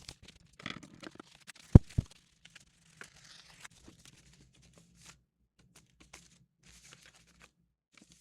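Foam and tape being handled and torn for a keyboard mod: crinkling and tearing with scattered small clicks, and two sharp knocks about two seconds in.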